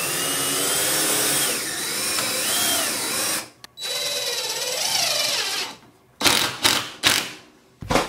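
Cordless drill driving a screw up through a wooden board into the ceiling, its motor pitch rising and wavering with trigger and load. It runs for about three and a half seconds, stops briefly, runs again, then gives a few short bursts near the end as the screw seats.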